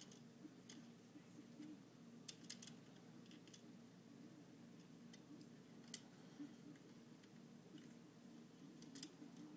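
Near silence: a low steady hum with a few faint, scattered clicks, about a handful in all.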